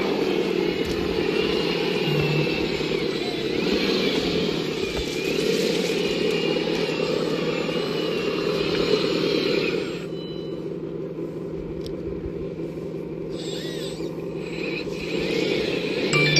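Small electric motors and hydraulic pumps of RC construction models running: a steady hum with a thin high whine that wavers in pitch, the whine dropping away about ten seconds in and coming back near the end.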